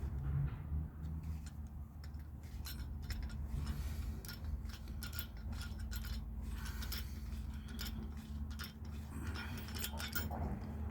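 Small metal clinks and clicks, many in quick succession, from handling brass valve parts and tools while taking a brass valve apart, over a steady low hum.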